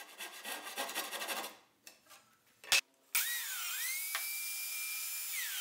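Handsaw strokes cutting through plywood for about a second and a half, then after a click a biscuit joiner's motor spins up to a steady high whine, dipping in pitch near the end as the blade bites into the plywood, then recovering.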